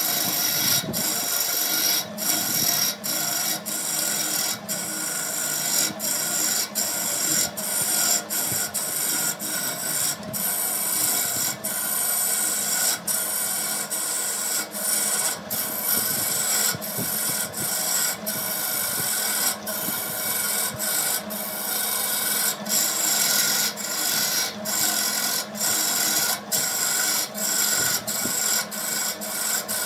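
A power tool working wood: a continuous abrasive rasping, broken by brief gaps once or twice a second.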